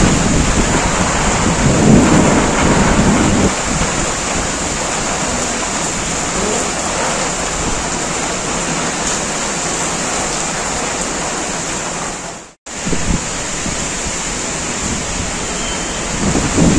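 Heavy monsoon rain pouring steadily, with thunder rumbling deep and loud over the first three or four seconds. The sound drops out for a split second about twelve and a half seconds in, then the rain carries on.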